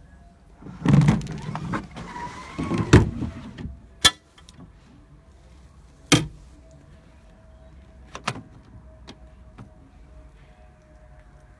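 Metal seat-rail fittings in a minibus-taxi floor being handled: a burst of rattling and scraping, then three sharp clicks about two seconds apart.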